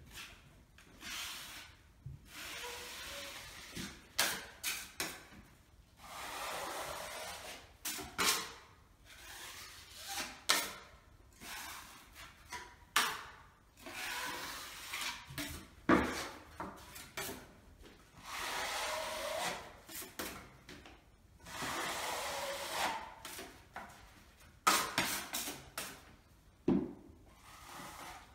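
Metal putty knife spreading and smoothing filler over a painted wall, each stroke a scraping rasp lasting a second or two. Sharp clicks and taps of the knife fall between the strokes.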